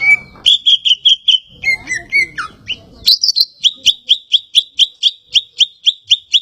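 Cucak ijo (green leafbird) singing loudly, first a varied warbled phrase, then from about three seconds in a rapid run of short, sharp, high notes repeated about four times a second.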